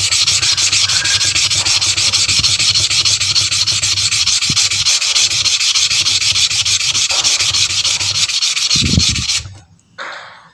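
Agate gemstone rubbed by hand in small circles on wet coarse sandpaper: a loud, fast, steady gritty scratching that stops abruptly about nine and a half seconds in.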